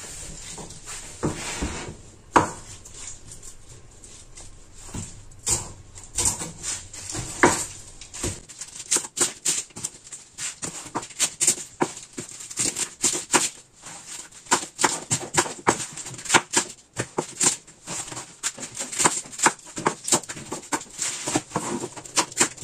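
Kitchen knife cutting crisp napa cabbage on a wooden chopping board: irregular crisp snaps and taps of the blade, a few at first, then several a second from about a third of the way in.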